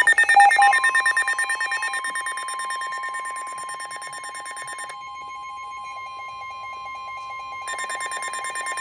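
NOAA weather radios sounding a warning alert: the broadcast's steady 1050 Hz warning alarm tone under the receivers' own rapid pulsing alarm beeps. The beeps fade, drop out about five seconds in, and come back near the end.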